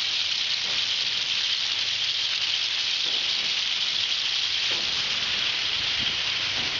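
A steady, even hiss, high and bright in tone, with a few faint ticks here and there.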